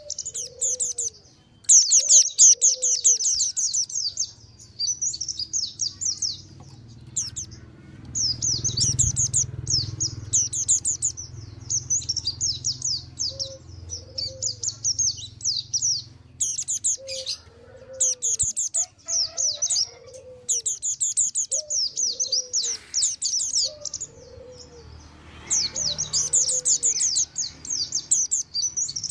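Mountain white-eyes calling noisily in fast, high chattering trills that come in bursts of a few seconds with short gaps: a lure call used for trapping white-eyes and for getting caged ones to sing. A short, lower down-slurred note repeats about once a second through parts of it.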